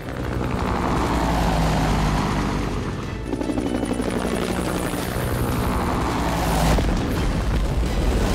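Cartoon helicopter rotor sound effect, a rapid steady chop over a deep rumble, mixed with action background music.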